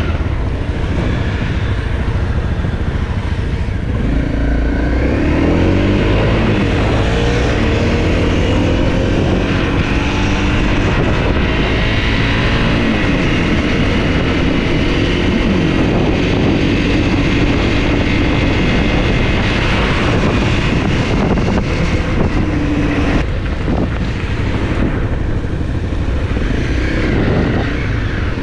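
Honda CRF250 dirt bike's single-cylinder engine running under way, its pitch repeatedly rising and falling as it is revved and shifted, over a steady low rumble of wind on the microphone.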